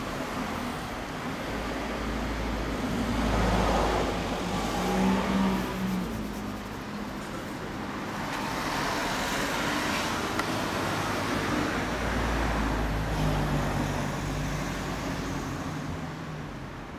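Road traffic passing by: vehicle engines and tyre noise swell and fade twice, once a few seconds in and again about halfway through.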